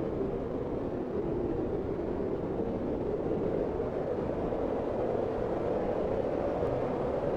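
Blizzard wind blowing in a steady low rush, strongest in the lower-middle range and with little hiss on top.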